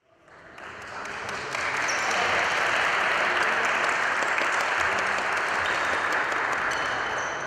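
Applause from spectators, fading in over the first two seconds and then holding steady.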